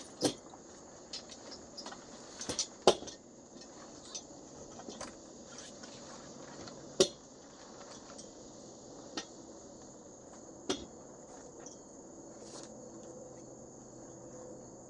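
Scattered metallic clicks, clinks and knocks from a pop-up canopy's metal frame being raised and adjusted, the sharpest about three seconds in and another about seven seconds in. A steady high insect trill, like crickets, runs underneath.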